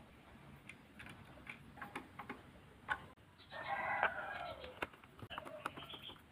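A rooster crowing once, a long call a little past midway that drops in pitch at the end, with a shorter call after it. Small clicks and taps of a plastic socket, wires and a screwdriver being handled are heard throughout.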